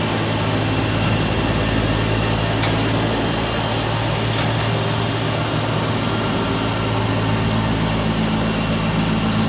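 OLIVINOX 300 mini continuous olive oil extraction machine running steadily with a low hum and a constant mechanical whir, with a single short click about four and a half seconds in.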